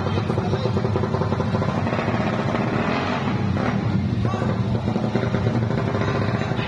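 Small motorcycle engines running loudly and steadily at low road speed.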